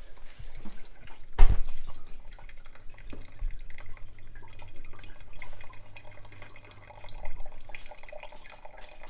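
Water poured from a kettle into a stainless steel cone pour-over coffee filter on a mug, splashing and trickling onto the coffee grounds. A sharp knock about a second and a half in is the loudest sound.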